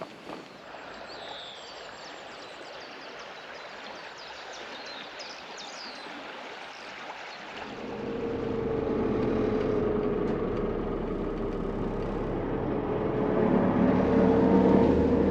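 A quiet outdoor background with a few faint high chirps. About halfway through it gives way to the inside of a moving bus: the engine and road noise make a steady hum with a droning tone, which grows louder near the end.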